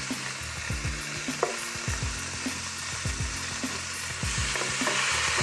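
Sliced vegetables sizzling in hot oil in a nonstick pot, sautéing until soft. A wooden spoon stirs them, with short scrapes and knocks against the pan.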